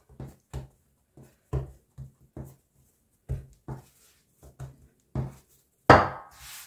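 Hands patting and pressing a ball of bread dough flat on a floured wooden tabletop: a dozen or so soft, irregular thuds, then one louder hit about six seconds in.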